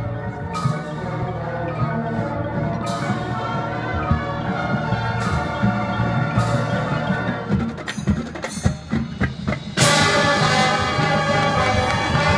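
Marching band show music: mallet percussion and chime strikes ring out over sustained low tones. A run of quick sharp percussion hits follows, then the full band comes in suddenly and louder a little before the end.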